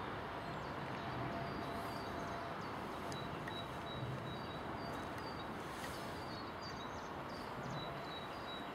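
Small songbirds chirping, short high calls repeated again and again, over a steady rushing outdoor background noise.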